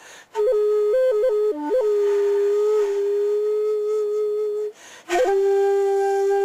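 Shakuhachi (Japanese end-blown bamboo flute) playing a slow solo phrase: a few quick ornamental flicks of pitch, then a long held note. After a short pause for breath about five seconds in, a second long, slightly lower note is held.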